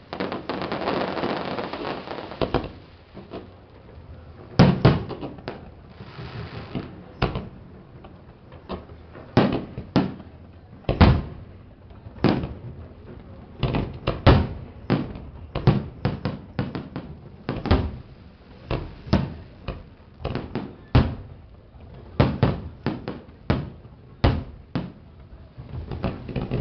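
Fireworks display: aerial shells bursting in a quick, irregular run of sharp bangs, about one or two a second. A dense hiss fills roughly the first two seconds.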